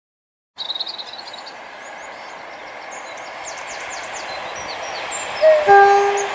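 Birds chirping over the slowly rising rush of an approaching train, starting abruptly about half a second in. About five and a half seconds in, the train sounds its horn: a brief higher note, then a lower one held for about half a second, the loudest sound here.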